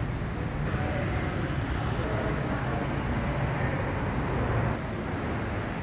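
Steady low rumbling background noise with no distinct events, easing slightly about five seconds in.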